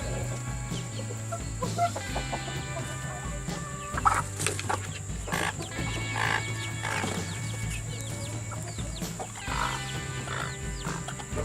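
Chickens clucking, with a few louder calls about four, six and nine seconds in, over background music with a steady bass line.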